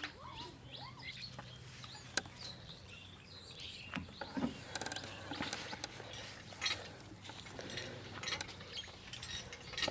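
Outdoor ambience: small birds chirping in short rising and falling notes, with scattered sharp clicks and knocks over a low steady hum.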